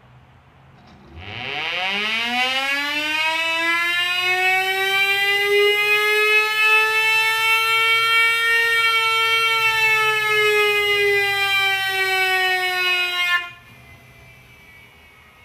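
Federal Signal Thunderbolt 1000 civil defense siren, run without its blower, winding up to a loud, steady wail. The pitch climbs for several seconds, holds, then the sound drops off sharply near the end, leaving a faint lingering tone.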